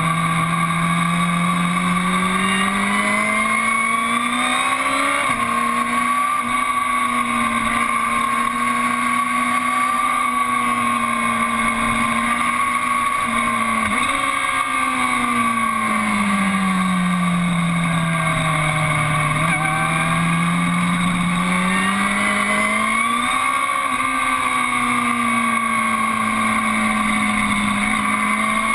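2012 Aprilia Tuono APRC's V4 engine running under load through a series of bends. Its pitch climbs and drops abruptly as it shifts up, about five seconds in and again around fourteen seconds. It then falls away slowly as the rider eases off and builds again for the next run.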